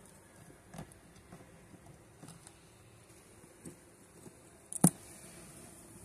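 Honeybees buzzing faintly around an open hive, with a few light knocks of wooden frames against the hive box and one sharp knock almost five seconds in.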